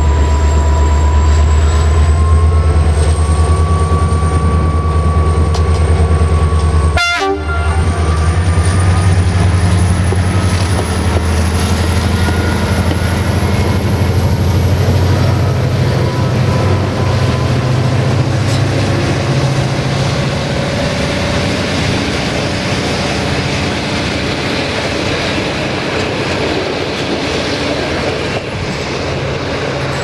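CFR class 65 diesel locomotive passing at close range with its engine running in a deep steady drone and a thin whine over it, then its passenger coaches rolling by on the rails. The drone fades from about halfway as the rolling noise of the train takes over.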